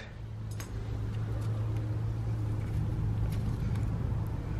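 A steady low hum, with a few faint clicks of brake caliper slide pins being handled and pulled out of the caliper bracket.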